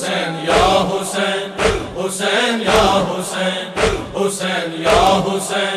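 Male voices chanting a Shia noha refrain in a sustained drone, kept in time by sharp rhythmic chest-beating (matam), about two beats a second.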